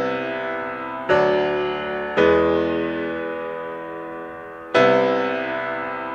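Background piano music: slow chords, a new one struck about every one to two and a half seconds, each left to ring and fade.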